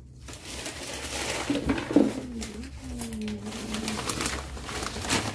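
Paper and plastic wrapping crinkling and rustling as a wrapped orchid plant is handled and unwrapped, with a sharp crackle about two seconds in. A low cooing sound wavers in the middle, from about one and a half to four seconds.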